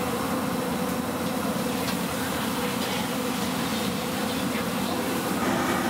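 Steady roar of a restaurant wok stove's high-flame burner, with a faint steady hum.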